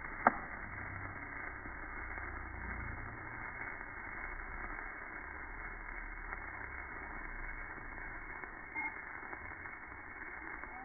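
A sharp pop as the centre of a lotus-flower birthday candle catches, then a steady hiss as its tall flame burns.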